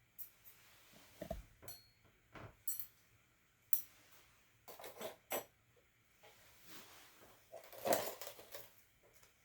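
Tea-ceremony implements being handled during the charcoal-rebuilding procedure: a scattered series of light clinks and knocks, the loudest cluster about eight seconds in.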